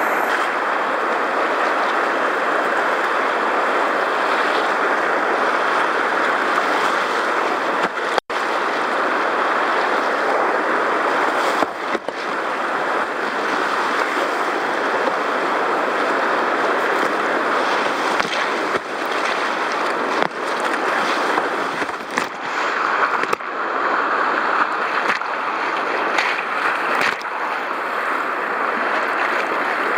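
Whitewater rapids rushing and splashing around a kayak, close to a deck-mounted camera, with spray washing over it; the rush is steady and loud, with a short break about eight seconds in.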